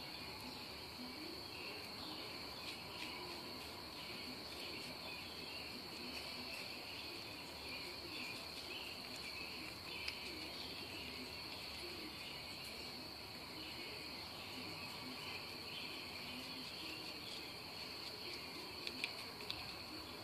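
Crickets trilling, a steady high continuous note with softer chirring beneath it. A couple of faint clicks come about ten seconds in and again near the end.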